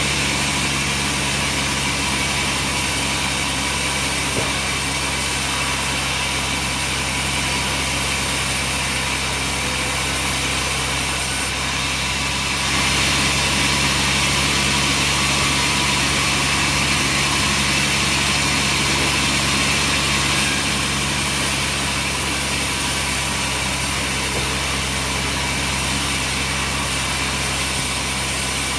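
Sawmill machinery running steadily with a constant hum and hiss, a little louder for several seconds around the middle.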